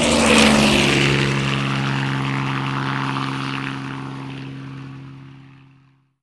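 An engine passing by: it is loudest about half a second in, where its pitch drops, then it fades away over the next five seconds.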